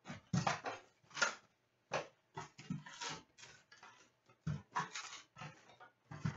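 A cardboard hockey card hobby box being opened and its wrapped card packs pulled out by hand: irregular rustling and crinkling with light knocks.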